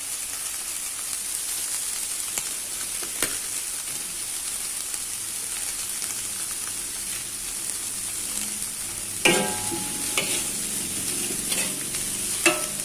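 Oil sizzling steadily in a wok as greens, egg and sliced meatballs stir-fry. A metal spatula scrapes and clanks against the wok, with a ringing strike about nine seconds in and a few more near the end.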